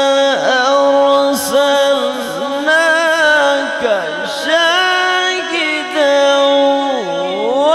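A man reciting the Quran in the melodic, drawn-out tilawat style. He holds long notes and ornaments them with glides and turns up and down in pitch, with a deep downward swoop about seven seconds in.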